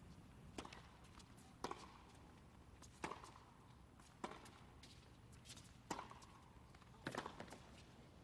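A tennis serve and the baseline rally that follows: the ball struck by the rackets in sharp, separate pops about every second and a quarter, with a cluster of quick knocks near the end.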